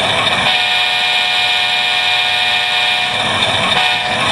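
Recorded diesel locomotive air horn from a Tsunami sound decoder, played at full volume through the small speaker of an HO-scale model locomotive. It sounds as a long multi-tone blast of about three seconds, breaks briefly, then starts again near the end.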